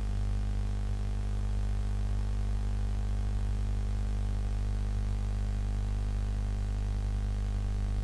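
Steady low electrical hum with a stack of overtones, unchanging throughout.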